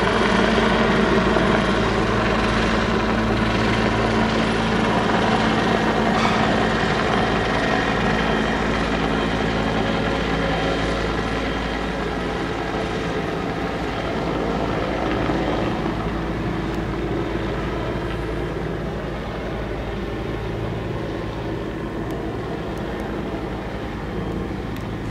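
Helicopter's steady rotor and engine noise, slowly growing fainter.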